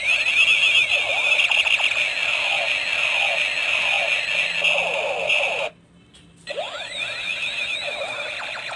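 A toy laser gun's electronic sound effects: rapid, repeated sweeping "pew" tones over a steady siren-like electronic tone. They stop for under a second about six seconds in, then start again.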